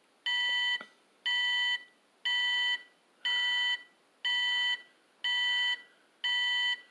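Driven Standard Series toy tow truck's electronic reverse-warning beeper sounding seven even beeps, about one a second, each about half a second long.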